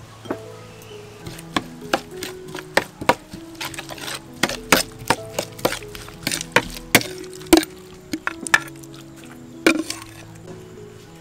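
Metal spoon stirring a chunky chili-garlic sauce in a bowl, knocking and clinking against the bowl in a quick, irregular run of sharp clicks, over soft background music.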